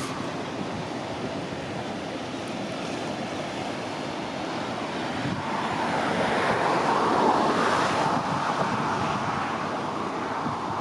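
Steady rushing of wind and sea water, swelling louder for about three seconds in the middle.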